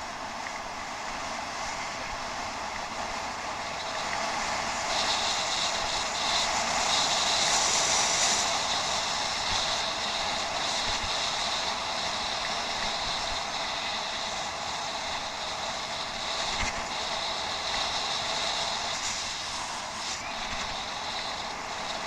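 Steady rolling noise of a bicycle ridden over rough off-road ground, with tyre and riding noise on a head-mounted action camera; it grows a little louder about four seconds in.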